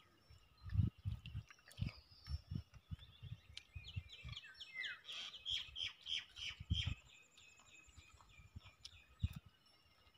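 Close-up eating sounds: chewing and biting make dull low thuds in quick clusters through the first seven seconds, with one more thud near the end. Behind them a bird calls in rapid runs of short repeated high notes, busiest in the middle.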